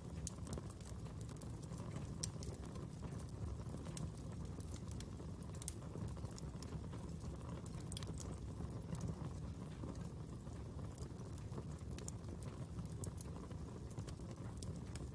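Wood fire crackling: a steady low rumble of burning with irregular sharp pops and snaps scattered through it.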